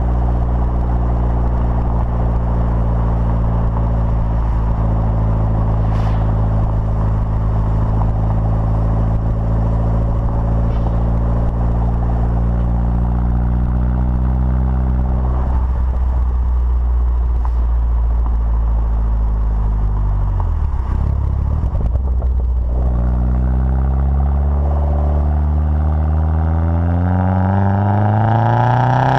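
Vauxhall Corsa VXR's 1.6 turbo four-cylinder heard close to the tailpipe through a 3-inch Cobra decat, non-resonated exhaust while driving. The note holds steady at first, drops in pitch as the car slows about halfway through, then rises steadily as it accelerates again near the end.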